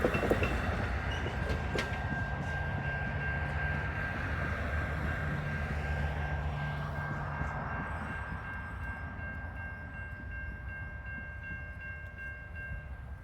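A train rolling on and fading into the distance, its rumble slowly dropping away, with a steady high whine held from about a second and a half in until near the end.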